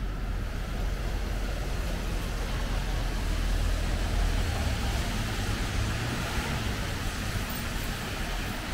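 Steady city street ambience dominated by the low rumble of passing road traffic.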